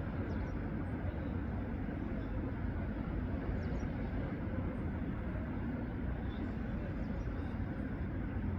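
Steady low rumble of outdoor background noise with no clear single source, and a few faint, brief high chirps scattered through it.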